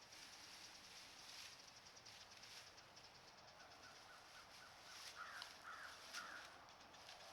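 Faint crow calling: a quiet run of short notes, then three louder caws in quick succession about five to six seconds in, over a soft hiss and light rustling.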